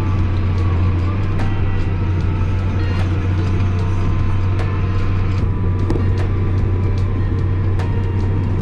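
Vehicle engine running at a steady pace, heard from inside the cab as a loud low drone, with light rattles and clicks over it.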